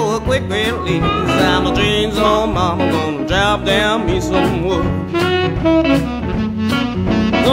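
Blues band playing an instrumental break: a lead instrument solos with bending, wavering notes over bass and drums.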